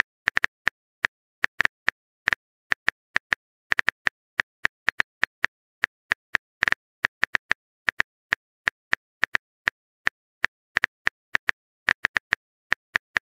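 Phone keyboard typing sound effect: a run of quick, irregular clicks, several a second, as a text message is being typed.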